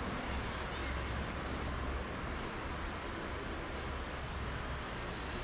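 Steady city street noise: a continuous traffic hum with a low rumble underneath.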